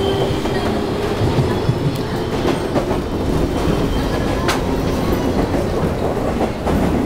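Running noise heard inside a JR East 201 series electric train car: a steady rumble of wheels on rail, with a few sharp clacks as the wheels cross rail joints.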